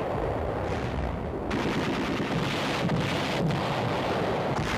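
Continuous, loud battle noise: rapid gunfire mixed with the blasts of shell explosions, with no break.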